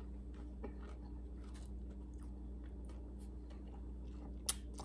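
A person chewing a bite of crispy air-fried apple pie egg roll, with soft, irregular crunching and mouth clicks and one sharper click near the end.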